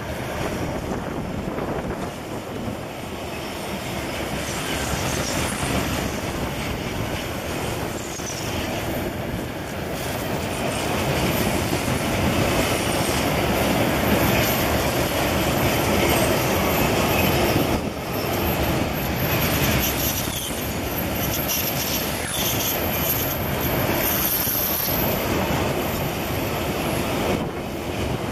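Loaded iron-ore hopper wagons rolling past close by: a steady rumble and clatter of steel wheels over the rail, louder midway, with high wheel squeal now and then on the curve.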